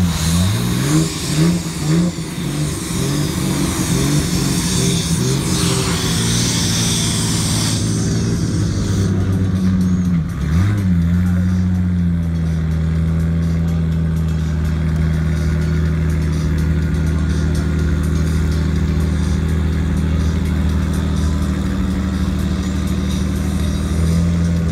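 Toyota Supra straight-six in a BMW E30 revving hard in quick bursts during a burnout, with a loud hiss of spinning tyres until about eight seconds in. It then settles to a steady idle, with one brief blip of the throttle about ten seconds in.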